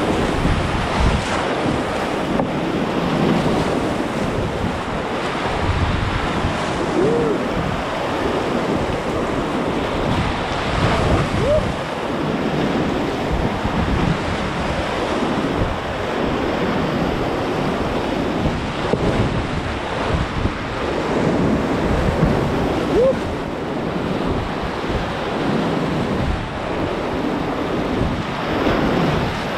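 Whitewater rapids rushing and splashing around a kayak running through them, heard up close from the boat, with paddle strokes in the water and wind noise on the microphone.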